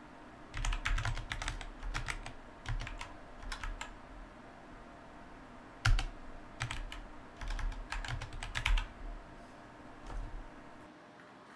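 Computer keyboard typing in quick bursts of keystrokes, with one sharper, louder keystroke about six seconds in; the typing stops about a second before the end.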